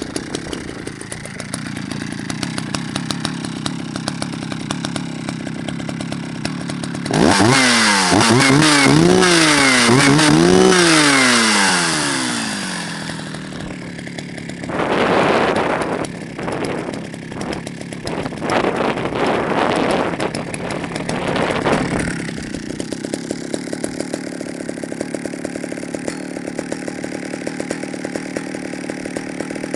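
Jonsered 70E two-stroke chainsaw idling, then revved hard several times in a row, its pitch rising and falling, before dropping back to idle. It then runs hard again in uneven bursts for several seconds and returns to idle.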